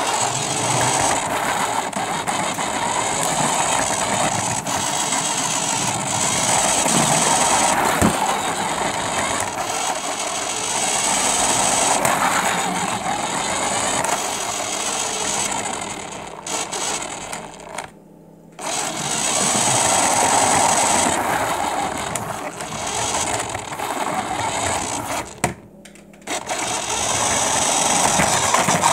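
Radio-controlled car's motor and gears whirring as it drives across the floor, swelling and easing with the throttle. It cuts out briefly twice, about two thirds of the way through and again near the end.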